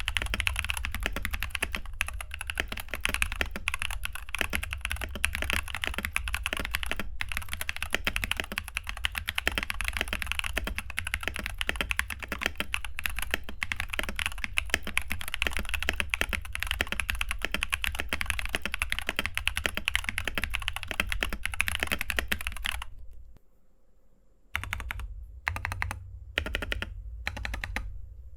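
Fast typing on a mechanical keyboard fitted with Glorious Panda tactile switches: a dense, continuous stream of key clacks that breaks off briefly near the end, then returns in sparser bursts.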